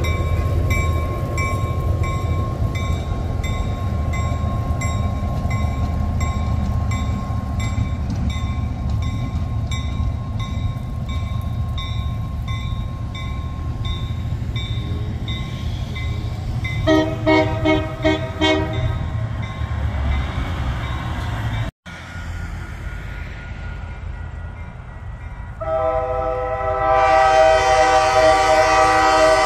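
Coopersville and Marne 7014 diesel locomotive running light with a steady engine rumble, giving a few short horn toots about two-thirds of the way through. After a break, its horn blows one long, loud blast near the end as it approaches the grade crossing.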